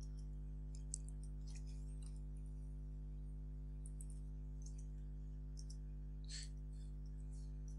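Computer keyboard keys clicking in short, irregular runs as code is typed, faint over a steady low hum.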